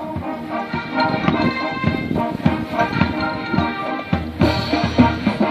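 High school marching band playing: the full ensemble of horns comes in at the start over steady drumline hits, and heavier low brass joins about four seconds in.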